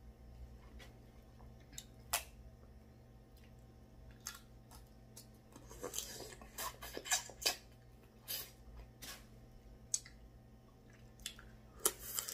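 Eating sounds from shrimp and snow crab eaten by hand: chewing and mouth smacks with scattered sharp clicks and crackles, busiest around six to seven seconds in.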